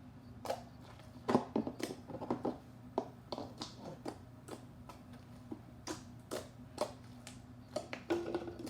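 Hands kneading and pulling sticky clear slime, making irregular wet clicks and smacks, some in quick clusters, over a faint steady hum.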